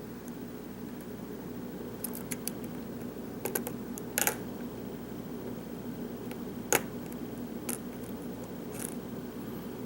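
Small, sharp metallic clicks and scrapes of a hook pick working the pins of a pin-tumbler lock held under a tension tool. There are about eight scattered clicks, the loudest a little after four seconds and another near seven seconds, over a steady low hum.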